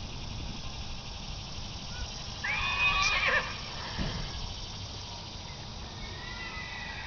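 A horse whinnying once, about two and a half seconds in, lasting about a second.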